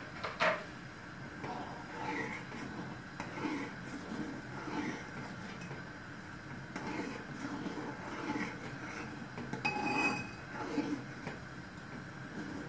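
Steel ladle stirring and scraping in a metal pan of milky kheer, with soft knocks against the pan and one brighter ringing clink about ten seconds in.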